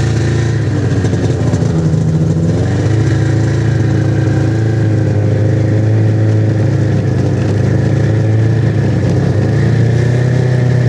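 Snowmobile engine running steadily under load while it tows a rider on a rope. Its pitch rises and dips in the first three seconds, then holds steady.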